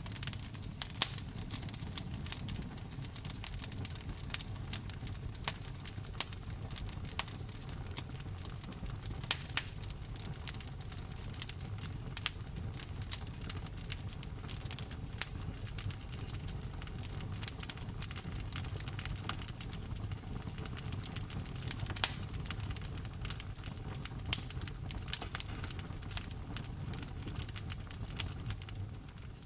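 Wood fire burning in a fireplace: irregular sharp crackles and pops of the burning wood over a steady low rumble of the flames.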